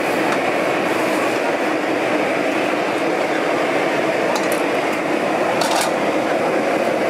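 Gas stove burners under the broth pots running with a steady rushing flame noise. Light clinks of metal tongs and ladle against the steel pots come twice, a little past the middle.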